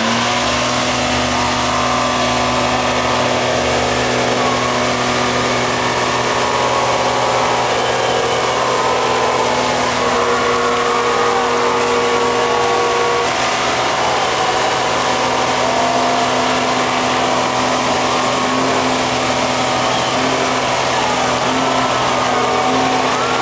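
Buick Grand National's V6 held at steady high revs through a burnout, the rear tyres spinning on the pavement with a constant hiss. Crowd voices can be heard underneath.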